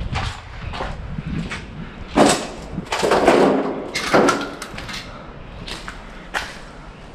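Irregular knocks and thuds, with the loudest cluster of impacts between about two and four and a half seconds in.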